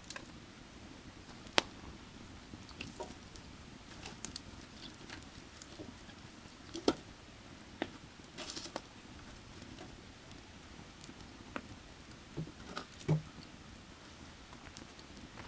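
Burning firewood crackling, with irregular sharp pops, the loudest about one and a half, seven and thirteen seconds in, over the steady rush of a creek.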